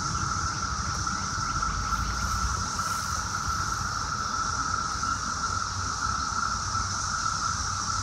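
Chorus of periodical cicadas: a steady, unbroken drone held at one high pitch, with a fainter, higher hiss above it and a low rumble underneath.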